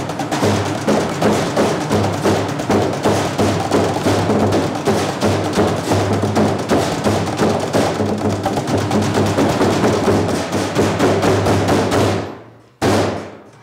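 Drumline beating fast, steady rhythms with drumsticks on galvanized metal trash cans and a plastic water cooler. The drumming stops about a second before the end, followed by one brief burst of sound.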